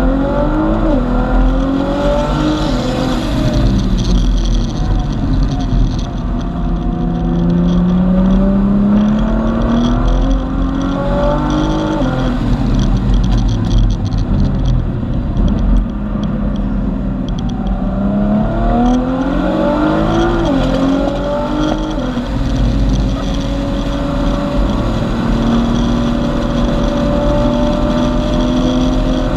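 Modified 2014 Nissan GT-R's twin-turbo V6, with a 4-inch aftermarket exhaust, heard from inside the cabin while driven hard on a race track. The engine note climbs under acceleration and drops several times, then holds steady near the end.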